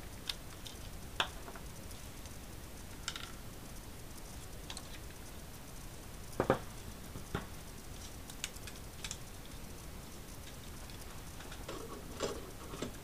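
Scattered light clicks and knocks of a hard-drive tray being handled, with a louder pair about halfway and a cluster near the end as the tray is slid into a NAS drive bay, over steady background hiss.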